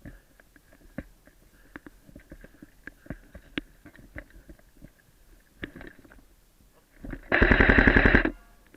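Airsoft gun firing one rapid full-auto burst of about a second near the end, the loudest sound, after several seconds of scattered faint clicks and rustling.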